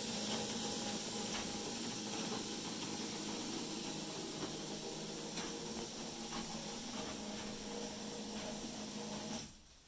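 Automated seed-dispensing machine running with a steady hiss and low hum and a few faint ticks. The sound cuts off suddenly near the end as the seeding cycle finishes.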